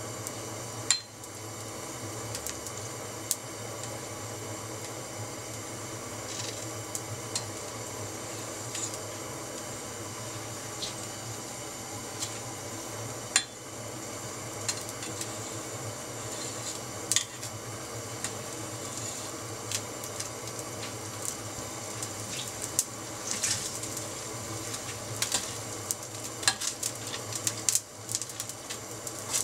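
Water boiling steadily in a stainless-steel saucepan with konnyaku pieces in it, while a metal ladle stirs and knocks against the pot in sharp scattered clinks. The loudest clinks come about a second in and about halfway through, and they come more often near the end.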